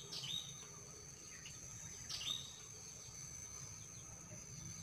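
A steady high-pitched insect drone, with a small bird chirping twice: once near the start and again about two seconds in, each chirp dropping in pitch and then holding briefly.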